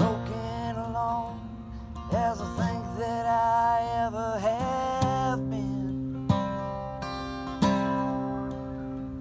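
Acoustic steel-string guitar strummed in a slow folk song. A man's voice sings over it for the first five seconds or so. After that the guitar plays alone, with two firm strums a little over a second apart.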